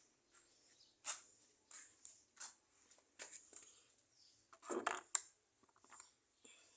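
Scattered light clicks and clinks of hand tools and small metal parts being handled, with a louder clatter about five seconds in.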